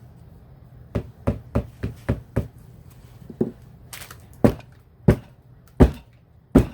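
About a dozen knocks as a mold of freshly poured soap batter is tamped down on the work surface to settle the layer: a quick run of lighter knocks about a second in, then louder, more widely spaced ones.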